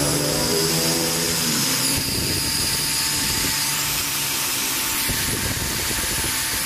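Electric angle grinder running with a steady whine, its abrasive disc grinding down the unthreaded shank of a steel valve-cover bolt clamped in a vise.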